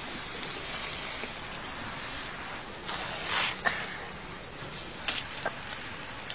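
A knife scraping along the charred skin of a whole grilled fish over embers, in a series of scraping strokes with a stronger one about three seconds in, followed by a few light clicks.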